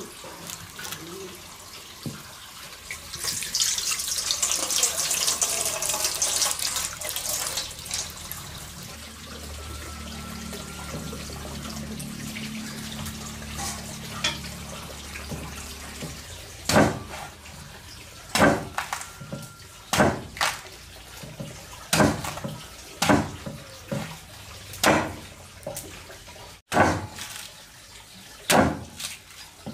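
Running water for a few seconds, then a low hum, then a long series of sharp knocks, roughly one every second or so.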